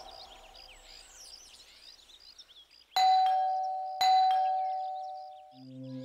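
Ding-dong doorbell chime rung twice, a second apart; each ring strikes a higher note, then a lower one, and both ring out. Faint birdsong chirps come before it, and soft background music comes in near the end.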